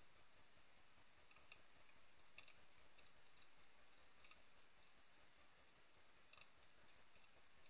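Faint, scattered clicks and crunches of European hedgehogs chewing food from bowls, over a quiet hiss.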